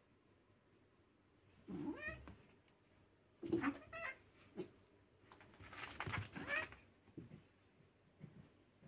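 Domestic cats play-fighting: a cat yowls in three short bursts, about two seconds in, again about a second and a half later, and a longer one around six seconds in.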